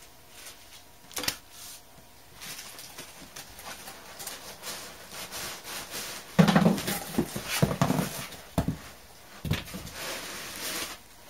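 Packaging being handled inside an opened cardboard box: papers and foam rustling and scraping, with a click about a second in and several knocks, the loudest a little past halfway.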